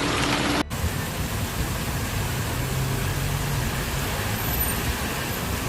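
Road traffic on a rain-soaked street: a steady hiss of tyres on wet road and falling rain, with a low engine hum through the middle.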